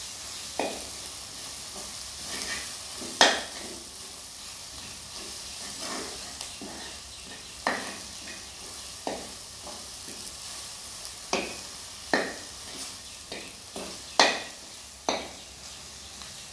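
Metal spoon stirring mushroom sabzi in a kadai, scraping and knocking sharply against the pan a dozen or so times at uneven intervals, the loudest knocks about three seconds in and near the end, over a soft steady sizzle of frying.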